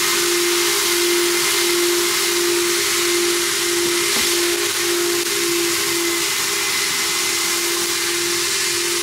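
Car-wash machinery giving a loud, steady hiss with a steady hum running through it. A faint click about four seconds in as the car's door handle is pulled.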